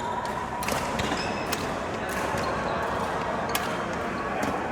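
Badminton rally: sharp racket hits on the shuttlecock, roughly one every second or two, over a steady hum of background noise in a hall.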